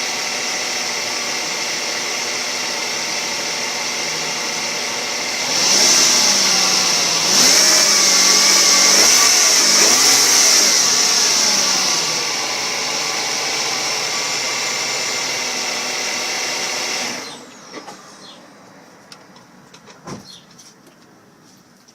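2005 Nissan Maxima's engine running with a steady high-pitched whine, the unexplained noise the owner is asking about. About six seconds in it is revved up and down, settling back after about twelve seconds, then stops suddenly about seventeen seconds in, leaving a few faint clicks.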